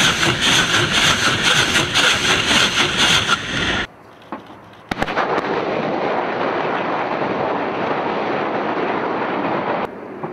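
Truck-mounted multiple rocket launcher firing a salvo, rockets leaving in quick succession, several a second, for about four seconds. After a sudden break, another salvo's launches run together into a steady rushing noise that drops away near the end.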